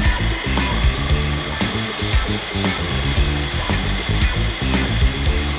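Food processor motor running steadily, its blade churning a thick minced-meat mixture, with background music.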